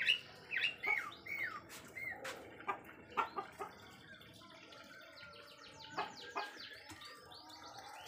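Canary chirping: scattered short chirps and curved, sweeping call notes, loudest right at the start, with a faint quick run of rising notes in the middle.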